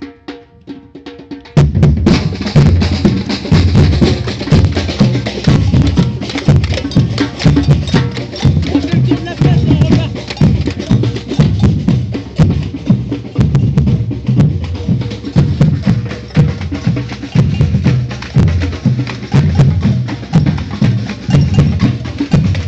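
Batucada (Brazilian samba percussion group) playing a fast, even samba rhythm, with deep bass drums carrying the beat under snares and sharp wood-block-like strikes. After a few quiet taps, the full group comes in suddenly about a second and a half in.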